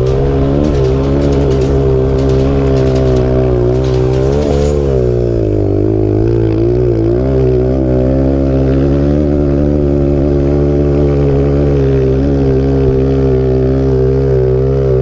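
Single-cylinder four-stroke trail motorcycle engine running under throttle through sand, its revs rising and dipping and then holding steady.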